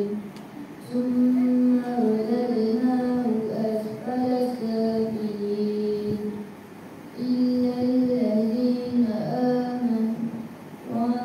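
A group of children chanting a melodic recitation together in unison, in long held phrases. The chanting breaks briefly for breath right at the start, around seven seconds in, and near the end.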